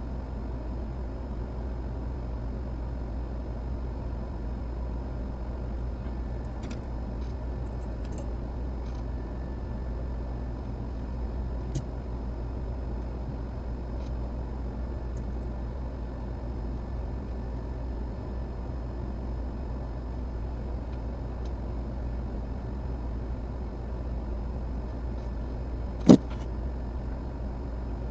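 Steady low mechanical hum, with a few faint ticks and one sharp click near the end.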